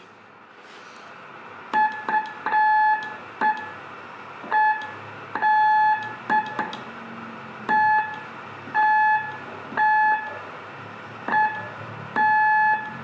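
Morse code sidetone beeps, one steady high pitch, keyed slowly by a beginner on a straight key: short and long beeps spelling out F, L and O and the start of R, the word "flor".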